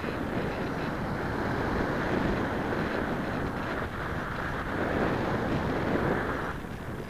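Airflow rushing over the microphone of a small onboard camera on a radio-controlled model plane in flight: a steady rush that swells and eases, dropping off near the end.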